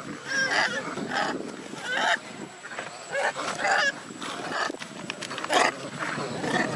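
Long-tailed macaques calling: a series of short, pitched calls, about a dozen in all, coming roughly every half second to second.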